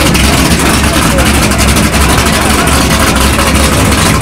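Fox-body Ford Mustang drag car's engine idling steadily through its tailpipes at the starting line, with crowd voices behind.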